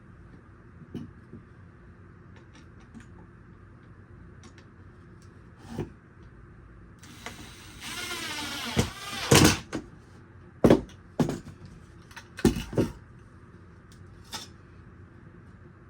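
Wooden bird-feeder parts and a glass pane being handled on a workbench: a scraping slide lasting about two seconds, about seven seconds in, then several sharp knocks and taps.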